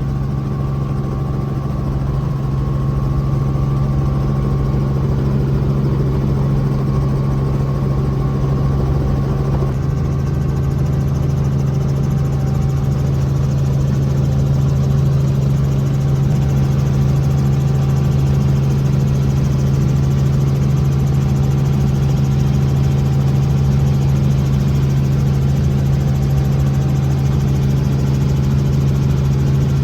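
Steady engine drone: an even, loud low hum that holds the same pitch throughout.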